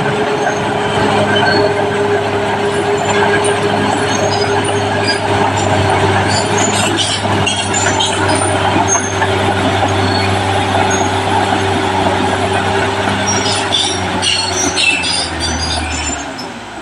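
Caterpillar D6R crawler bulldozer working: its diesel engine runs steadily under load with a constant whine, while the steel tracks clank and give short high squeaks. Near the end the engine note drops and the whine fades.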